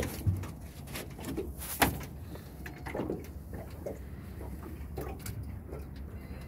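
Scattered knocks and rattles of handling in a small aluminium boat, the sharpest about two seconds in, over a steady low rumble.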